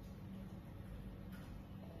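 Pan-tilt Wi-Fi security camera's motor running with a faint low hum as the head is steered, breaking off briefly near the end, with one soft click about a second and a half in.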